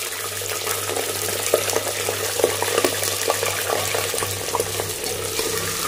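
Raw meat pieces sizzling in hot mustard oil with fried onions in a pressure cooker: a steady hiss with many small crackles and pops, the sear as the meat hits the oil.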